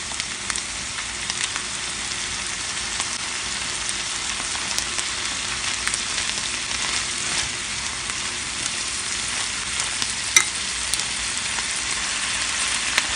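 Corn kernels sizzling in hot melted butter in a frying pan, a steady hiss with fine crackles, stirred with a spatula. A single sharp click comes about ten seconds in.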